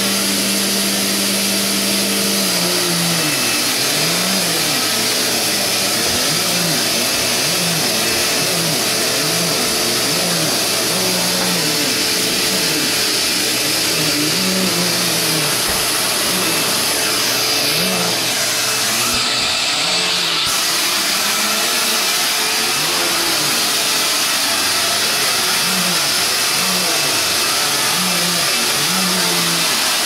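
Vacuum cleaner running on carpet, a steady motor hum with a loud airy hiss; after the first couple of seconds the hum rises and falls in pitch about once a second.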